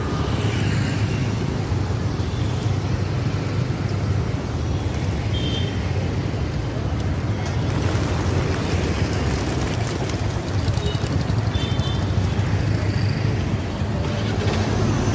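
Steady road traffic from passing motorbikes and cars. Partway through, a flock of feral pigeons flaps up off the ground, its wingbeats clattering for a couple of seconds.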